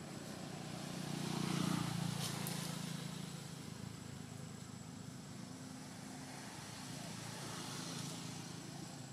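A motor vehicle's engine hums past at a distance, swelling to its loudest about one and a half seconds in and then fading to a low steady drone.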